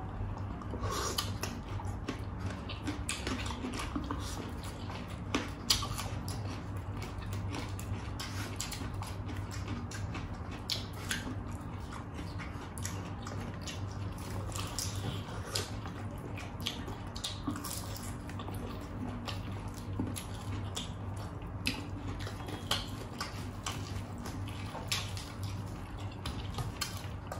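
Close-miked eating sounds of two people eating fried chicken and rice with their hands: chewing, lip smacking and small wet clicks in a steady stream, over a steady low hum.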